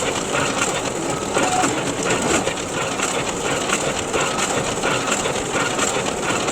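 Photocopier running: a steady mechanical whirr with a fine, irregular rattle throughout.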